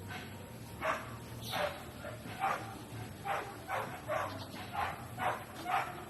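A run of short, harsh animal calls, about nine of them at uneven spacing, one to two a second.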